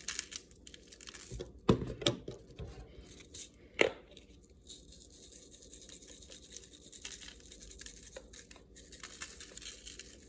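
Kitchen prep handling noises: a few sharp knocks and taps, then several seconds of steady scratchy rustling.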